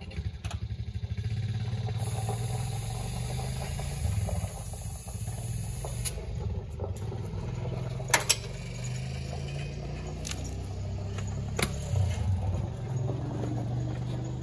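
Kubota M8540 tractor's diesel engine starting, with rapid pulsing for about a second, then running steadily at idle with a low, even note. A few sharp clicks or knocks sound over it partway through, twice standing out.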